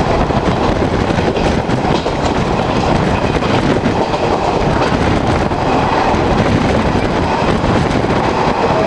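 Valsad–Bandra Terminus passenger train running through a station at good speed, heard from aboard: a loud steady rumble with the wheels clattering over the rail joints.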